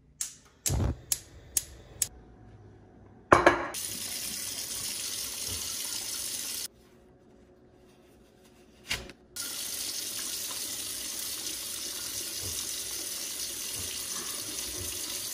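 Gas range igniter clicking about five times, roughly two a second, as the burner knob is turned. Then a loud thump and a steady rushing hiss, which stops for a couple of seconds and starts again.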